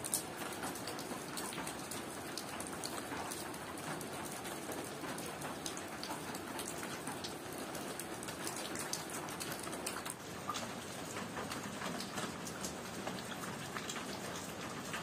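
Steady rain falling, with many drops pattering and dripping close by, and one sharp click just at the start.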